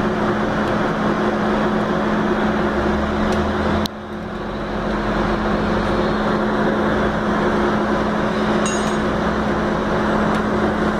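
A steady machine drone with a constant low hum. A single sharp click comes about four seconds in, and the noise dips suddenly there before building back up.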